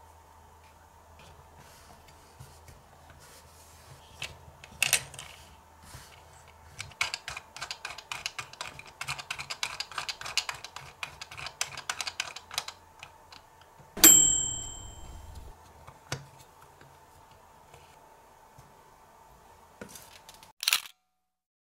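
Small plastic clicks and rattles from a miniature capsule-toy microwave oven: a sharp click as the door is handled, then a quick run of ticking clicks as the little timer knob is turned. About two-thirds of the way through comes one bright bell-like ding that rings out and fades, a microwave's 'done' signal, followed near the end by another click as the door opens.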